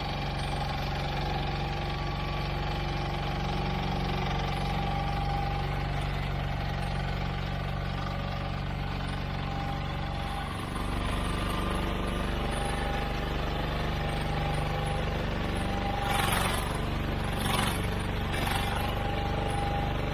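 Mini excavator's engine running steadily, its note shifting briefly about halfway through. Near the end come three short, harsh noisy bursts over the engine.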